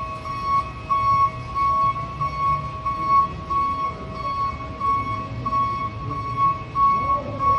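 A steady high electronic note pulsing on and off about twice a second, at the same pitch throughout, over a low rumble.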